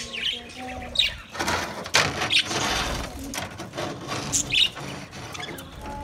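A flock of budgerigars chirping and chattering, short high calls overlapping throughout, with a flurry of flapping wings about a second and a half in.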